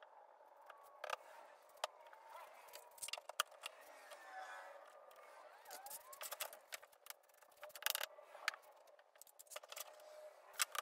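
Irregular sharp clicks and knocks as one-handed trigger bar clamps are set on a plywood frame and squeezed tight, with the wood and clamp bars knocking as they are handled.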